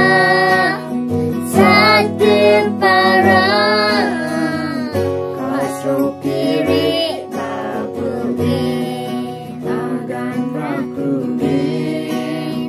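A man, a young girl and a woman singing a song together to a strummed acoustic guitar.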